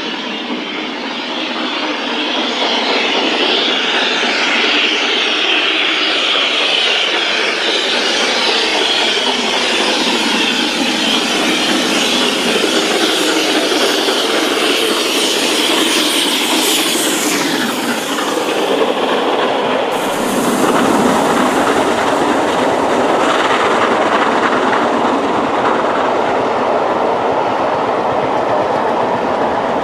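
LMS Royal Scot class 46115 Scots Guardsman, a three-cylinder 4-6-0 steam locomotive, working hard uphill with a strange high-pitched steam noise over its exhaust. The sound drops in pitch as it passes, about 17 seconds in. After a sudden change about 20 seconds in, the train's coaches roll by with wheels clacking on the rails.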